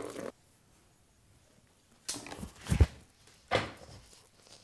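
Water poured from a glass pitcher over a head of hair into a plastic basin, stopping just after the start. About two seconds later come two short noisy bursts, the first ending in a dull thump, as the hair is handled over the basin.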